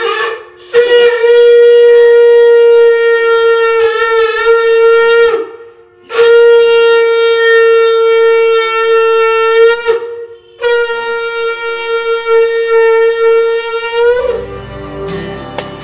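Conch shell (shankha) blown three times in long, steady blasts, the traditional call at the end of a Hindu home puja; the pitch wavers briefly in the first blast. Soft guitar music comes in near the end.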